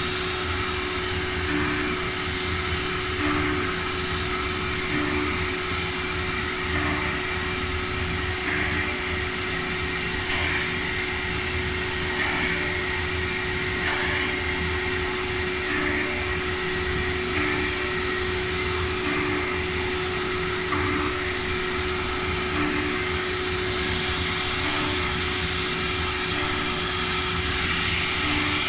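Woodworking CNC machine running steadily, a continuous whirring noise with a steady whine and faint short blips repeating about every second and a half.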